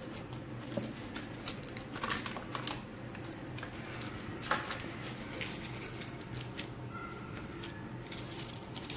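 Scattered light taps and clicks of cheese slices and hands handling a stainless-steel blender jar, over a steady low hum.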